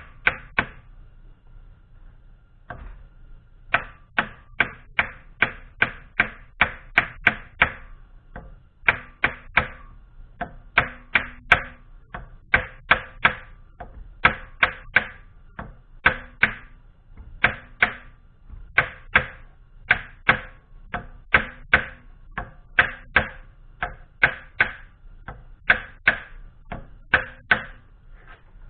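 Hammer tapping a part into place on a drill press: sharp knocks about three a second, in runs of several blows with short pauses between them.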